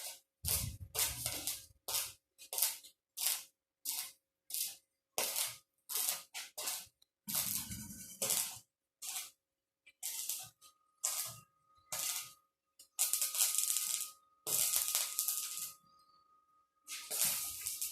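Electric arc welding on galvanized iron pipe: a string of short crackling bursts, each a brief weld, with silent gaps between them.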